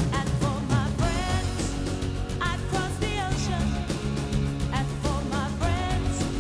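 Upbeat pop-rock theme music with a steady drum beat, a prominent bass line and a wavering lead melody.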